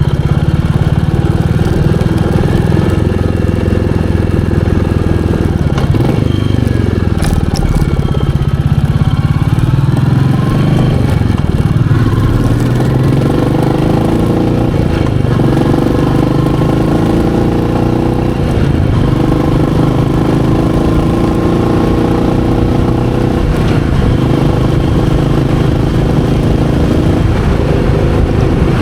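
Royal Enfield Meteor 350's single-cylinder engine running on the move. Its pitch drops as the bike slows a few seconds in, then climbs as it speeds up again, and it runs fairly steadily through the rest.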